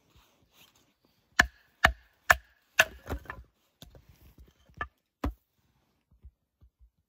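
Large bushcraft knife chopping into an upright log: four sharp strikes about half a second apart, then a run of lighter knocks and clatter of split wood, and two more single strikes.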